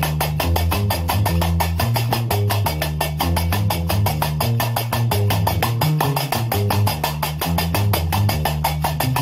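Gnawa music: a guembri bass lute plays a repeating low plucked line while qraqeb iron castanets keep up a fast, steady clicking over it.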